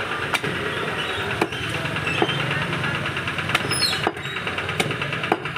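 Meat cleaver chopping pieces of a lamb's head on a wooden chopping block: about seven sharp knocks at uneven intervals. A steady engine-like drone runs underneath.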